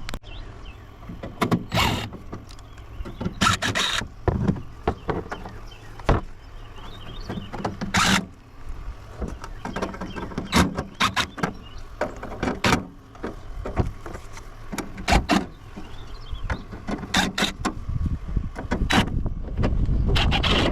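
A large coffee maker being handled and taken apart: irregular knocks and clatter of its metal and plastic parts, with several short mechanical whirring bursts.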